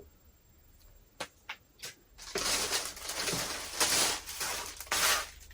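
Packaging rustling and crinkling as a hat is unpacked: a few light clicks, then about three seconds of dense crinkling with several louder crackles.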